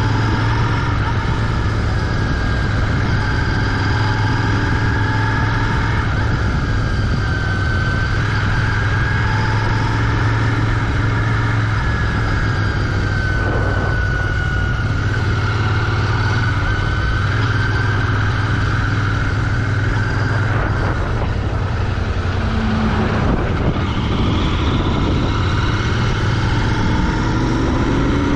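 Royal Enfield Continental GT 650's 648 cc parallel-twin running through its stock exhaust while the bike is ridden. The engine holds a fairly steady speed, and the pitch rises in the last few seconds.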